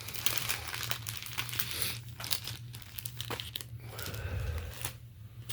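Packaging crinkling and rustling as the goodie bag is handled and opened, a dense run of rapid crackles that thins out and grows quieter after about four seconds.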